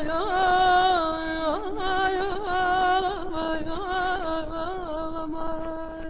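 Female singer holding a long ornamented melismatic phrase in Azerbaijani mugham style, with quick trills and turns on the sustained notes. She pauses briefly about a second and a half in, and the phrase fades toward the end.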